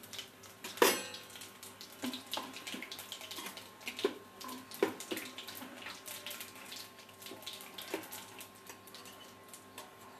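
Whole spices sizzling in hot mustard oil in a kadai, with a spatula knocking and scraping against the pan; a sharp clatter about a second in is the loudest sound.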